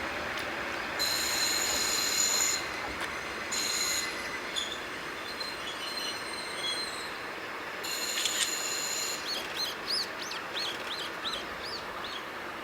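KiHa 40-series diesel railcar pulling in to stop, its wheels and brakes squealing in three high-pitched bursts over the running rumble. A bird chirps repeatedly near the end.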